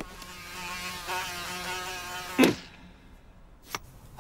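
A cartoon housefly buzzing with a wavering pitch, then a single sharp slap about two and a half seconds in as it is swatted with a spatula, followed by a faint tap near the end.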